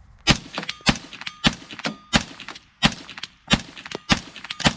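Semi-automatic .22 WMR (22 Magnum) AR-15 rifle firing a steady string of about eight shots, roughly one every two-thirds of a second.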